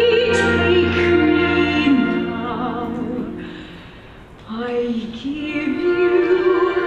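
Musical-theatre duet sung live, the voices wavering with vibrato: a held phrase fades out about three seconds in, and after a brief lull a voice comes back on a rising line.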